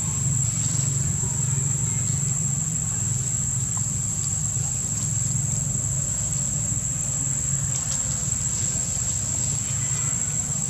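Steady high-pitched insect drone over a low steady rumble, with a few faint rustles and clicks.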